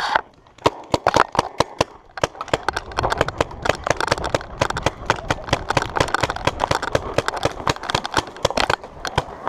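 Paintball markers firing in a rapid, irregular string of sharp pops, several a second. The pops are sparse for the first two seconds or so, then come thick and fast.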